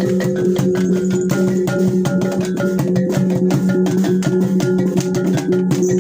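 T'boli traditional instrumental music: a fast, even stream of struck notes over steady low sustained tones.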